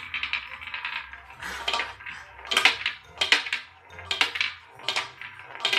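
Irregular sharp clicking and clattering from a small toy roulette wheel as a dog nudges it with its nose, over background music.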